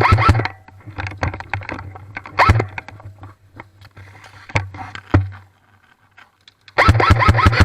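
Airsoft guns firing in rapid full-auto bursts, a fast even rattle of shots right at the start and again near the end. Scattered single clicks and rustling come in between.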